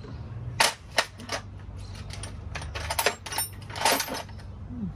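Sharp metallic clicks and clinks of steel bolts and washers being handled and set into the engine block to clamp the cylinder liners down. A few single clicks come in the first second or so, then two quick clusters around three and four seconds in.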